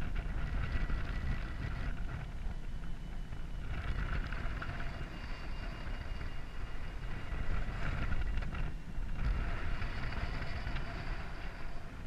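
Wind of a paraglider's flight buffeting the camera's microphone during a climb in a strong thermal: a steady low rumble, with a higher hiss that comes and goes in stretches.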